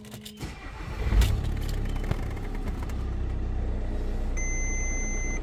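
VW Crafter's turbodiesel engine being cranked, catching about a second in and settling into a steady idle. Near the end a dashboard warning beep sounds as one steady high tone for about a second.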